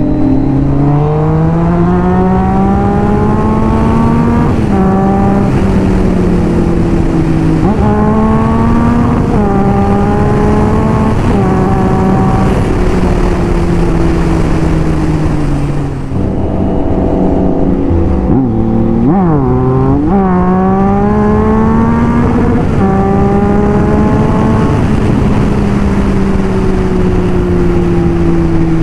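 Motorcycle engine pulling hard through the gears, its pitch climbing and dropping back at each of several upshifts. About two-thirds of the way through it eases off, then comes a quick run of throttle-blipped downshifts, and it pulls up again before slowly winding down. Wind rush over the rider-mounted microphone runs underneath.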